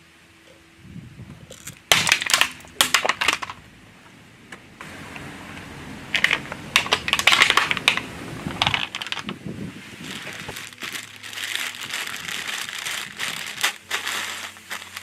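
A car tyre rolling over and crushing crunchy objects: three bouts of dense cracking and crackling, the last one longer, over a faint low engine hum.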